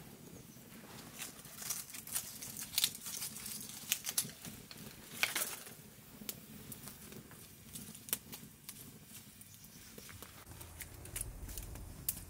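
Small twig fire among rocks, crackling as dry sticks and leaves are pushed into it: irregular sharp snaps and crackles with light rustling, busiest in the first half.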